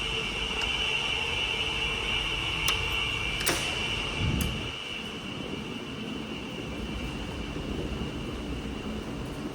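Steady indoor background noise with a constant high-pitched whine, broken by a few sharp clicks and one dull low thump a few seconds in.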